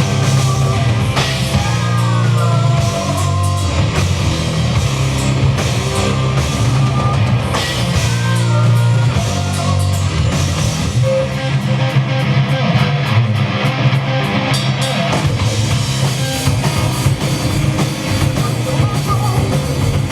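Loud rock music with a drum kit, heavily driven electric guitars and bass, with a lead guitar line bending in pitch in the first few seconds and again near the middle.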